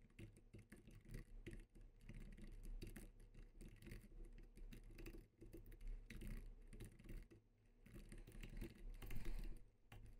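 Faint typing on a computer keyboard: a quick, uneven run of key clicks, broken by a short pause about three quarters of the way through.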